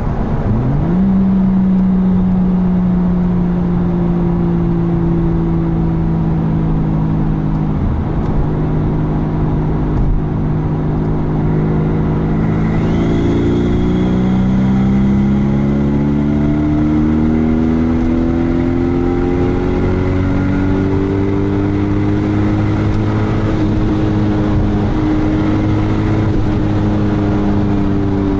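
Turbocharged Toyota 2JZ straight-six in a Mazda RX-8, heard from inside the cabin at motorway speed. Its pitch dips and comes back right at the start, then holds fairly steady, then rises steadily as the car accelerates from about halfway through.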